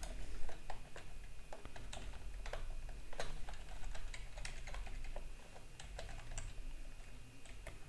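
Typing on a computer keyboard: irregular key clicks, several a second, thinning out near the end.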